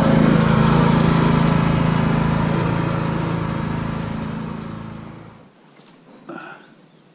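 Engine of a small wide-tyred off-road vehicle running steadily as it drives, fading out over a couple of seconds and cutting off about five and a half seconds in. Then near quiet with a couple of faint small knocks.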